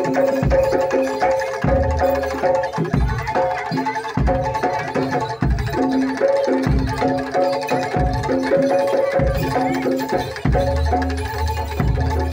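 Live traditional Javanese gamelan-style music: short pitched notes repeating in a looping pattern over regular hand-drum strokes, with a deeper drone joining near the end.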